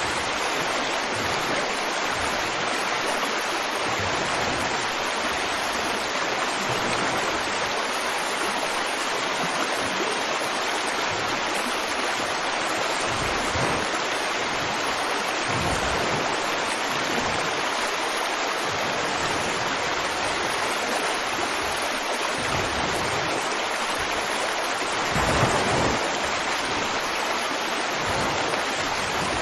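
River water flowing over rocks, a steady rushing and babbling, with a brief louder splash near the end.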